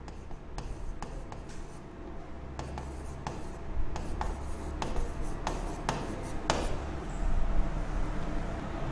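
Stylus pen tapping and scratching on an interactive touchscreen board as handwriting is drawn on it: irregular sharp ticks, a little louder about two-thirds of the way through.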